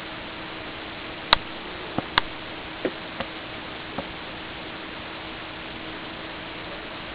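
Steady recording hiss with a faint low hum in a quiet room, broken by six short, sharp clicks and knocks between about one and four seconds in, the first the loudest.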